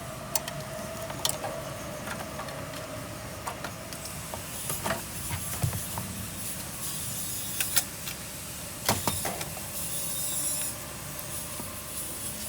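Scattered clicks and knocks of hand tools and metal parts being worked on a car battery's mounting and terminals, with two short hissing rustles.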